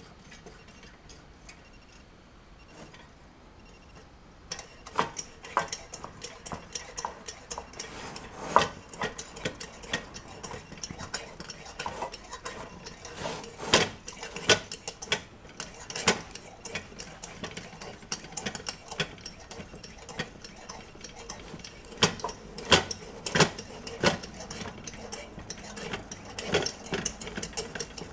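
Butterfly 828 kerosene pressure lantern being hand-pumped to keep it lit: from about four seconds in, many irregular metallic clicks and knocks from the pump and fittings, several a second, over a steady hiss.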